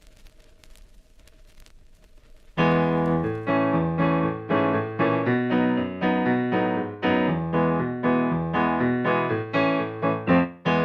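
Faint hiss with a few small clicks, then about two and a half seconds in a piano starts playing a lively run of struck notes and chords.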